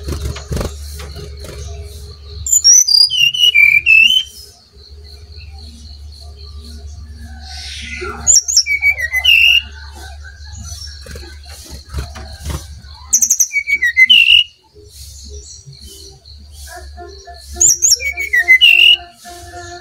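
Brown-chested jungle flycatcher singing: four loud, short phrases of high whistled notes that drop in pitch, about five seconds apart. A faint steady high tone and a low hum run underneath.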